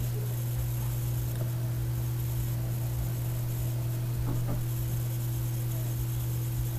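Steady low hum with a faint hiss in the background: recording noise in a small room while nothing else sounds. A couple of faint, brief sounds come about two-thirds of the way through.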